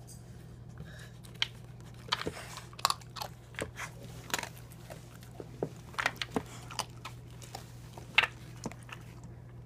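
Australian cattle dog eating dry kibble from a plastic maze slow-feed bowl: irregular sharp clicks and crunches as it picks pieces out and chews them.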